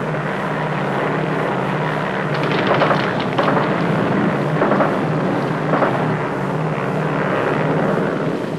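Propeller aircraft engine droning steadily, with a few brief louder rushes of noise about three, four and a half, and six seconds in.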